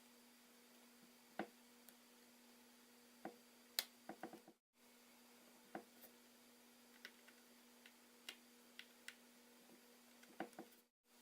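Faint, scattered clicks and ticks of small tools and parts being handled while an iPhone 4S is put back together, some in quick clusters, over a low steady hum. The sound drops out briefly twice, once near the middle and once near the end.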